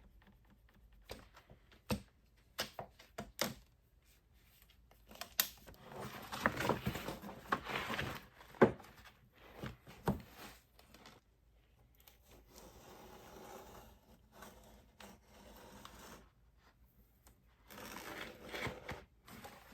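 Plastic window film being handled and cut on a bench: scattered clicks and taps, a long stretch of crinkling and rustling in the middle, and a steadier scraping later on.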